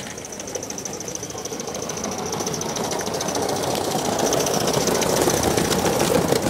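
Gauge 1 live-steam model locomotive approaching along the track, its fast rhythmic running noise and high steam hiss growing steadily louder.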